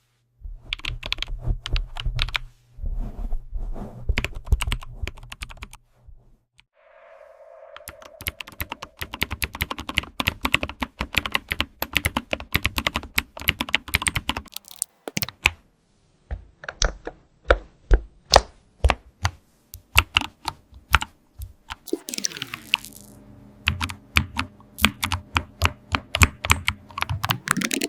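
Computer keyboard being typed on in fast runs of key clicks, broken by a few short pauses. Near the end a low hum of several steady tones sits under the typing.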